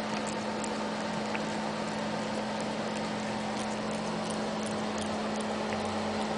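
Cat licking a hard lollipop: faint, irregular wet clicks of its tongue on the candy over a steady hum and hiss.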